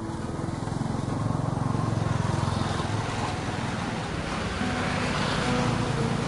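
A motor vehicle engine running and passing by, with a fast low pulsing at first and then a rising rush of noise that is loudest about five seconds in.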